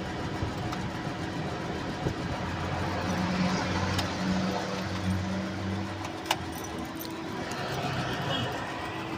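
Car engine running steadily at idle, with a few sharp clicks, one about four seconds in and one near six seconds.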